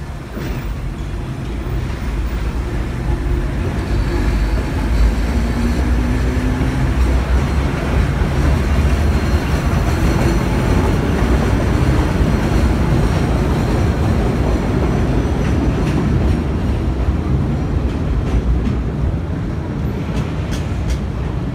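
Vintage New York City Subway train running along an elevated track: a steady rumble of wheels on rail that grows louder a few seconds in.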